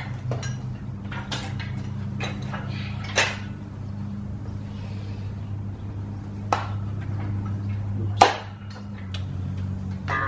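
Steel yoke parts, bolts and tools being handled during assembly: several sharp metal clanks and knocks, the loudest about eight seconds in, over a steady low hum.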